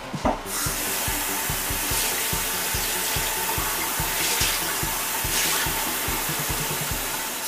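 Water running steadily from a kitchen tap, then shut off abruptly near the end.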